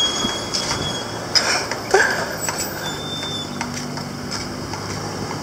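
Steady engine and traffic noise from heavy vehicles and machines at a road-construction site, with a low engine hum, and a few short knocks and clatters about one and a half to two seconds in.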